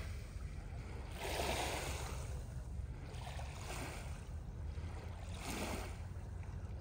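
Small Lake Superior waves washing in on the shore, one swell of rushing water about every two seconds, over a steady low rumble.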